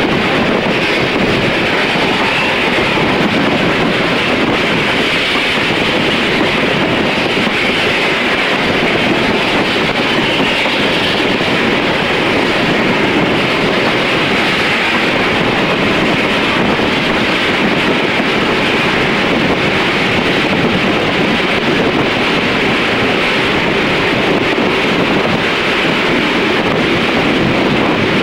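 Steam-hauled passenger train running along the track, heard from an open coach window: a steady rush of wheel and rail noise, with wind on the microphone.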